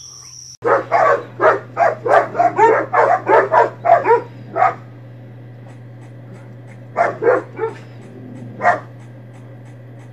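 A dog barking repeatedly. It starts about half a second in with a quick run of about a dozen barks over four seconds, then a few more scattered barks later.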